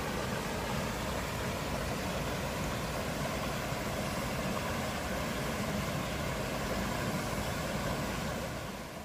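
Water of a small mountain waterfall rushing steadily over rock, fading out near the end.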